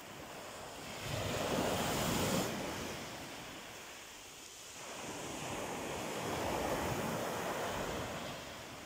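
Small sea waves breaking and washing up a pebble beach, the surf swelling twice a few seconds apart.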